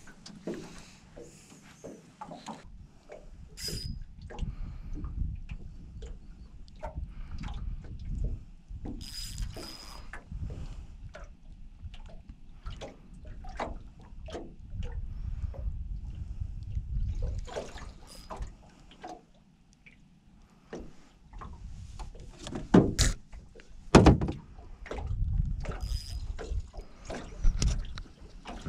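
Knocks, clicks and clatter from fishing gear being handled in a small boat, over a low rumble. Two sharp, loud knocks come close together about three-quarters of the way through.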